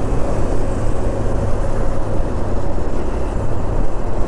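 Motorcycle riding at steady speed in city traffic: engine running under a heavy, even rush of wind and road noise on the rider's camera microphone.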